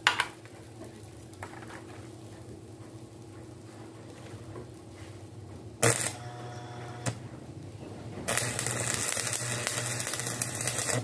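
Stick (arc) welding on steel bar: the electrode strikes an arc about six seconds in with a short crackling burst, sputters once more, then from about eight seconds burns steadily with a loud crackling sizzle. A sharp clack comes at the very start.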